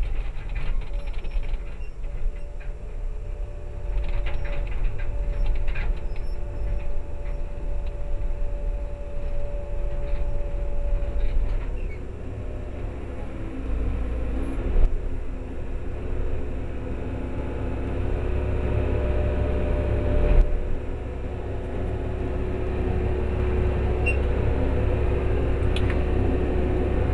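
Case 9020B excavator's diesel engine and hydraulics running while the machine is worked: a steady low rumble with a steady hum over it. The pitch sags briefly about halfway through, then recovers.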